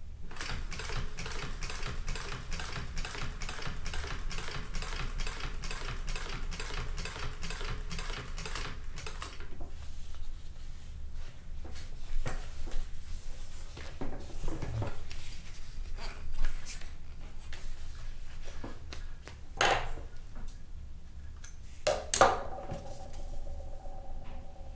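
Consew 206RB-5 walking-foot industrial sewing machine sewing slowly, the needle and feed clicking at an even rate of about four stitches a second as it runs a top stitch through upholstery material. It stops after about nine seconds. A few scattered clicks follow, then two sharp snaps near the end.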